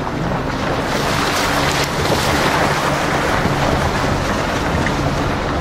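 Off-road vehicle driving slowly over a wet, muddy, rocky track: a steady low engine hum under a loud rushing of tyres through mud and gravel, which swells about a second in.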